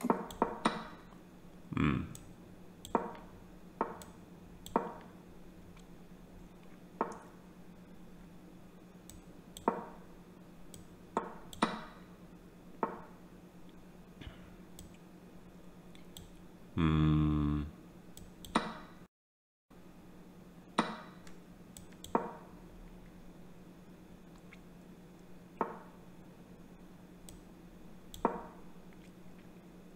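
Online chess move sounds: short, sharp clicks every second or two at irregular intervals as pieces are played in a fast game, over a steady low hum. About 17 seconds in, a loud buzzing tone lasts under a second.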